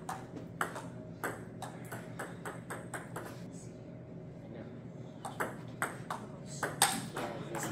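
A table tennis ball clicking off paddles and the table in quick rallies, about three hits a second. The hits stop for about two seconds in the middle, then start again. A steady low hum runs underneath.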